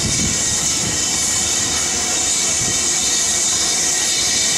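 Steam locomotives at a station: a steady, loud hiss of escaping steam over the low rumble of the BR Standard 7 Pacific rolling slowly. Uneven low beats from the moving engine die away about two seconds in.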